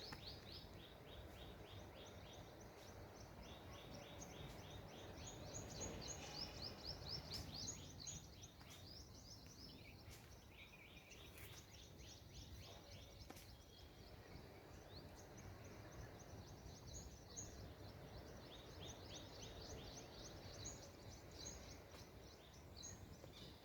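Birds chirping in repeated quick runs of short, high notes, over a faint low background noise.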